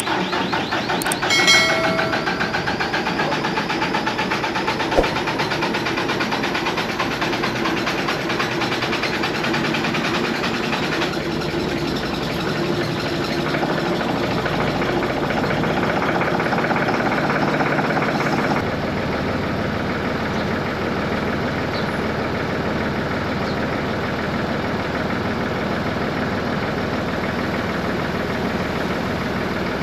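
Massey Ferguson 4707 tractor's diesel engine running steadily just after a hard cold start at about 6 below zero. A brief higher tone sounds about a second and a half in, and the engine sound changes abruptly about 18 seconds in.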